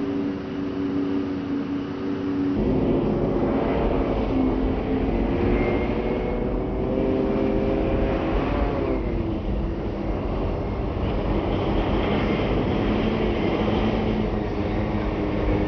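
Large off-road mining haul truck's diesel engine running as the truck drives, its engine note rising and falling. A heavier, louder rumble sets in suddenly about two and a half seconds in.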